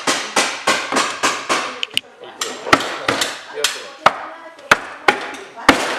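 Repeated hammer strikes on wood, about three a second at first, then slower, sharper knocks after about two seconds.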